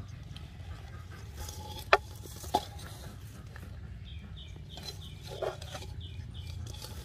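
Fingers rummaging and rustling through loose shredded palm-trunk pith, with two sharp knocks about two seconds in and a shorter knock near the end.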